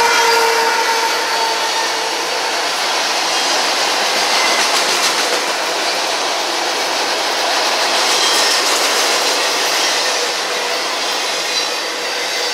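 Freight train's autorack cars rolling steadily past, with the even noise of steel wheels on rail. A few held tones fade out over the first couple of seconds.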